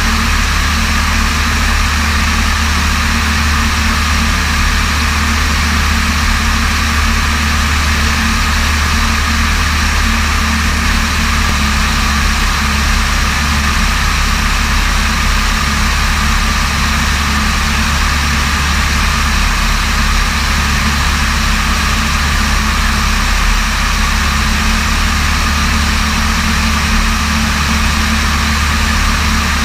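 Light aircraft's piston engine and propeller droning steadily in cruise flight, with a constant rush of air over it; the engine note shifts slightly about twelve seconds in.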